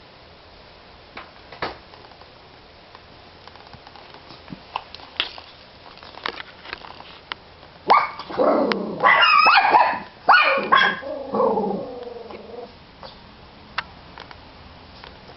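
A pet dog barking and whining in an excited run of calls lasting about four seconds, starting about eight seconds in. Before it come scattered light clicks and taps.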